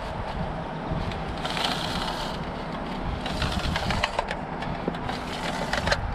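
Wind rumbling on the microphone, with two rushing gusts, plus a few light clicks and knocks from a metal wire spool being handled.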